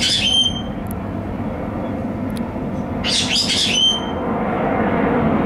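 Steady low jet rumble from the Boeing 747 Shuttle Carrier Aircraft carrying Endeavour and its escort jets overhead, growing a little louder near the end. A bird gives a short chirpy call twice, at the start and about three seconds in.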